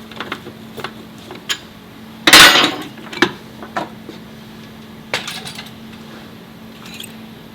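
Metal tools and parts clinking and clanking during hand work, with one loud metallic clatter a little over two seconds in and a few smaller knocks after it. A steady low hum runs underneath.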